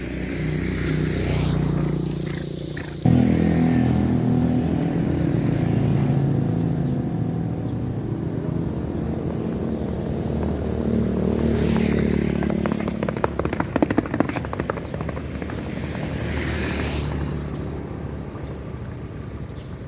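An engine running steadily, jumping louder about three seconds in, with a spell of clattering near two-thirds of the way through.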